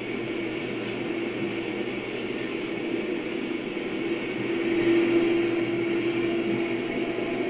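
Diesel locomotives of a coal train working past, a steady engine drone over rail and track noise, with the drone getting louder about halfway through.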